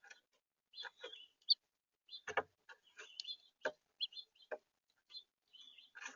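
House finches giving short, scattered chirps, with a few sharp knocks among them.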